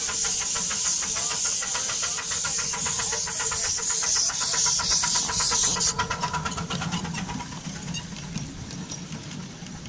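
7¼-inch gauge Tinkerbell miniature steam locomotive passing close by, hissing steam from its cylinders over a rapid, even beat of clicks. The hiss cuts off suddenly about six seconds in, leaving the clicking and low rumble of the passenger carriages rolling over the track, fading as they go.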